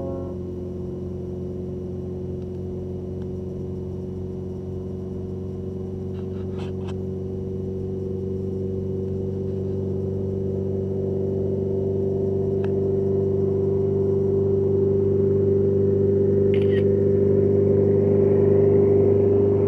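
Diamond DA40 Diamond Star light aircraft's piston engine and propeller droning at a steady pitch, growing louder over the second half as the plane comes down the runway on its takeoff run.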